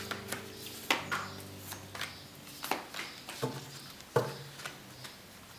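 Soft background music with long held notes, with a few light taps and clicks over it.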